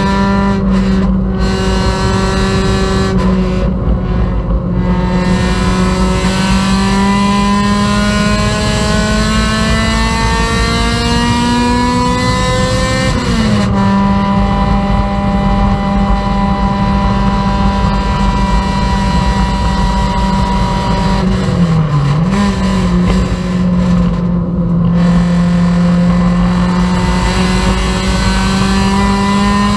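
Honda Civic race car engine heard from inside the cabin, running hard at racing speed. Its pitch climbs slowly through a long pull, drops sharply on an upshift about thirteen seconds in, dips briefly about twenty-two seconds in, then climbs again near the end.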